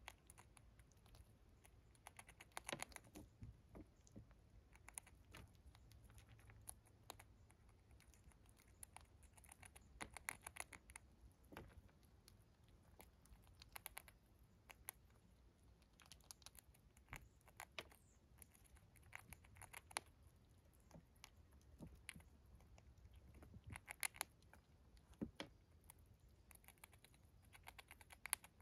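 Gray squirrel gnawing dried corn kernels: faint, irregular crunches and clicks, some sharper than others.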